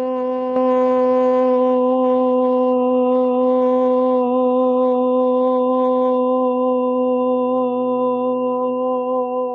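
A woman's voice holding one long, steady chanted "so" on a single pitch, a throat-chakra purification sound. It gets a little louder about half a second in, and its bright upper overtones fade about six seconds in, leaving a softer, hum-like tone.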